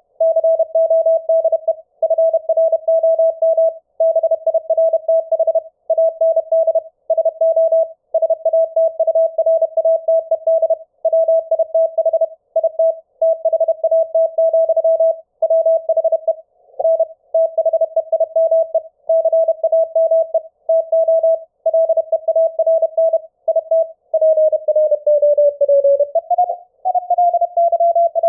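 Morse code (CW) audio: a single steady-pitched tone keyed in quick, irregular dots and dashes, heard through SDR#'s CW bandpass filter. Near the end the tone's pitch slides lower, then jumps back up, as the CW pitch is retuned in the receiver.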